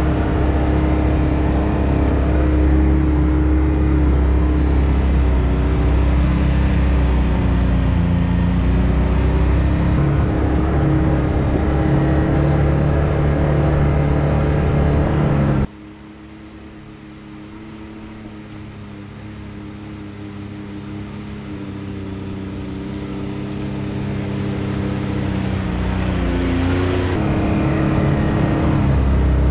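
Can-Am Maverick X3 Turbo RR side-by-side's turbocharged three-cylinder engine running steadily under way, heard on board. About halfway through, the sound suddenly drops much quieter, builds back up over about ten seconds, then jumps back to full loudness near the end.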